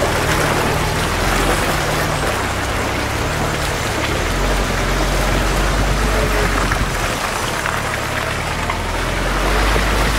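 UAZ Patriot engine running at low speed, its note shifting a few times, with muddy water sloshing and splashing under the tyres as it drives through a flooded rut.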